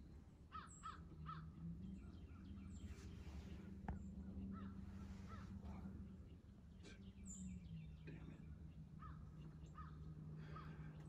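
Crows cawing faintly, a few short calls at a time, over a low steady hum, with one sharp click about four seconds in.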